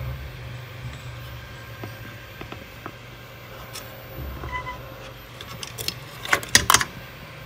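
Graphics card being handled and pushed into a motherboard PCIe slot: scattered small clicks, then a quick run of sharp plastic-and-metal clicks about six and a half seconds in as the card is seated. A steady low hum runs underneath.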